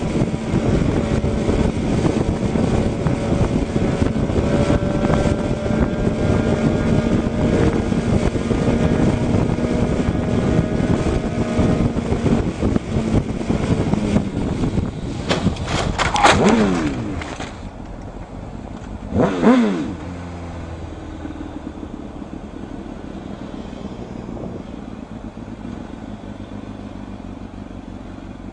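Motorcycle engine running at highway speed with heavy wind noise on a rider-mounted camera. About halfway through come two loud passes with a falling pitch, about three seconds apart, after which a quieter steady drone remains.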